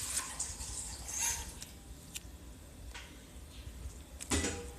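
Jelly slime with bits of foam mixed in being squeezed and played with by hand: faint wet squishing with a few small clicks and pops.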